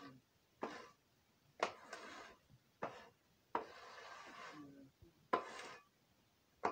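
A long-handled shovel scraping donkey manure across the stall floor in six strokes, each a sharp scrape that trails off; one is drawn out for over a second.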